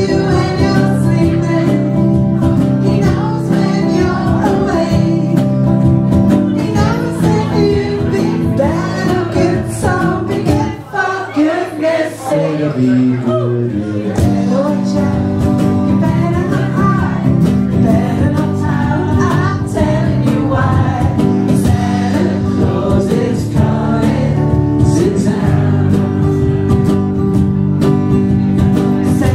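Live band music with a woman singing through a microphone over electric guitar and band backing. About eleven seconds in, the low backing drops away for about three seconds, leaving the sliding vocal and guitar lines, and then the full band comes back in.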